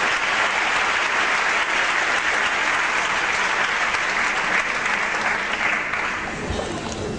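Audience applauding steadily in a theatre, the applause thinning out near the end.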